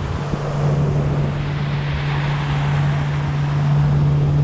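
Motorboat engine running steadily while the boat cruises, with a constant low hum, water rushing past the hull and wind on the microphone; the rush grows a little stronger about halfway through.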